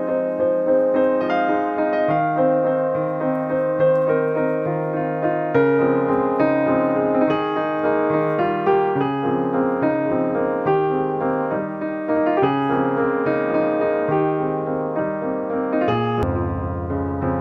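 Background piano music: a melody over held bass notes, with the bass shifting lower near the end.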